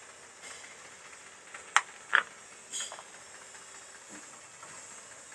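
Steady background hiss, broken about two seconds in by two sharp knocks in quick succession and then a brief higher-pitched scrape.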